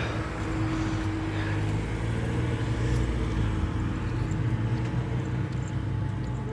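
Steady low hum of a vehicle engine running, with a constant drone and a faint steady tone above it.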